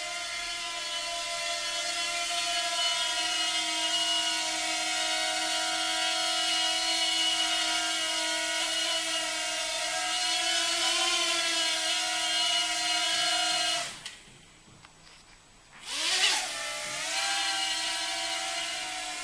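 Eachine H8 Mini micro quadcopter's four small brushed motors and propellers whining steadily in flight, the pitch wavering slightly. About fourteen seconds in the motors stop for about two seconds, then start again with a rising whine.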